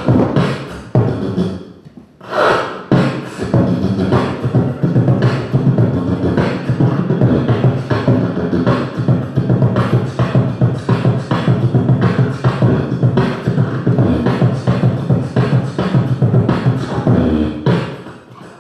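Beatboxing close into a handheld microphone with hands cupped over mouth and nose: a fast, continuous rhythm of kick and snare sounds over a steady low tone, with a short break about two seconds in.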